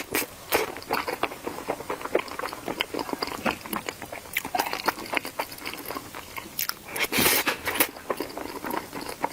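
Close-miked chewing and biting of food, a dense run of irregular crunchy clicks, with a louder, longer stretch about seven seconds in.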